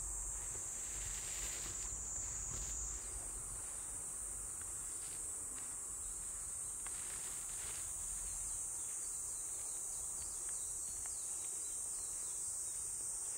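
Steady, high-pitched chirring of insects, with faint soft strokes of a brush through a cat's fur now and then.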